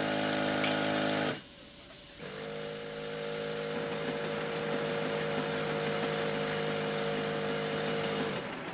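Underground coal-mine machinery running with a steady pitched motor drone and a noisy rush. It cuts out about a second and a half in, starts again half a second later and runs steadily, then stops shortly before the end.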